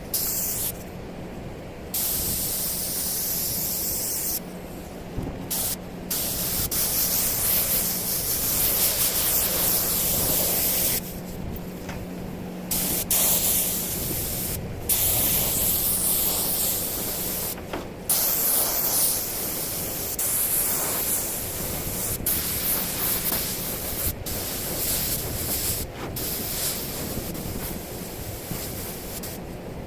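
Paint being sprayed onto the truck bed in repeated bursts of hiss, starting and stopping as the trigger is pulled and released between passes. A steady low hum runs underneath through the first half, then stops.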